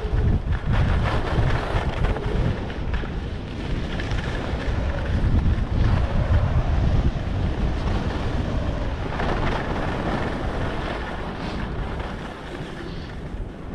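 Wind rumbling on the microphone of a camera carried by a skier descending, over the steady hiss of skis sliding on snow. The hiss briefly grows louder about nine seconds in.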